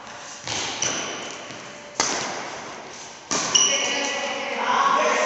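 Badminton rackets striking a shuttlecock in a rally: a series of sharp hits echoing in a large hall, a few of them followed by brief high squeaks or ringing.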